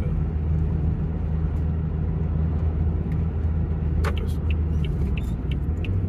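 Steady engine and road drone inside the cabin of a Renault Espace driving along at speed. About four seconds in a click is followed by a regular ticking, about three ticks a second, typical of the turn indicator switched on as the car nears a lay-by.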